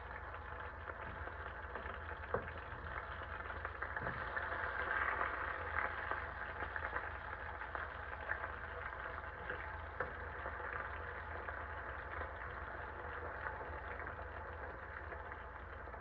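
Potatoes sizzling as they fry in hot oil: a steady crackling hiss with scattered small pops, over a low steady hum.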